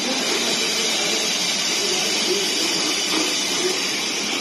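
A tin can packaging line running, with a steady hiss of machine noise.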